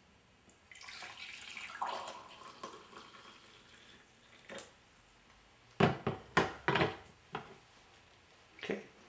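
Hot coffee poured from the brewer's carafe into a mug for about two seconds. A few sharp knocks and clinks follow later.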